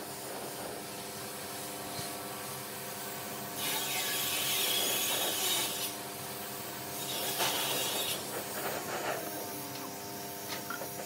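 Compressed-air spray gun with a gravity-feed cup spraying finish onto a wooden tabletop: two bursts of hiss, one of about two seconds starting some three and a half seconds in, then a shorter one about seven seconds in. A steady hum runs underneath.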